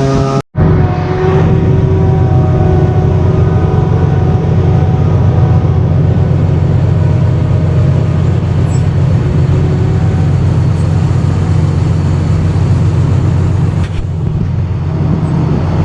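Large diesel farm-tractor engine running steadily under load, a constant low drone heard from inside the cab, with a brief break about half a second in.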